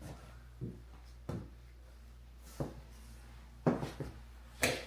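A handful of irregular thumps and knocks in a small, empty room, the loudest near the end, over a low steady hum.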